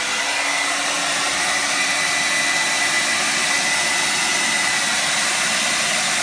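1875-watt Revlon Turbo Ionic hair dryer running, a steady rush of air with a faint high whine from the motor; it is putting out some serious wind.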